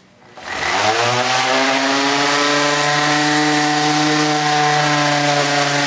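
DeWalt 5-inch random orbit sander starting up, its pitch rising over the first second, then running steadily as it sands a glued-up pine tabletop; it cuts off abruptly at the end.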